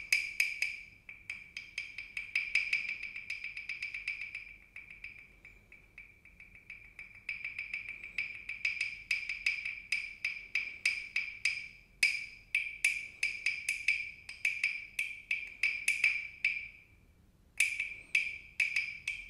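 Hollow carved wooden frog percussion toy (frog guiro) played with its wooden stick: quick runs of hollow wooden clicks, each ringing at the same pitch, with a short pause near the end.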